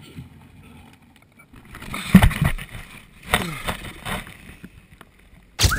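Close-up rustling and handling noise against the microphone, with two louder bursts about two and three and a half seconds in. Near the end a whistled tune over guitar starts.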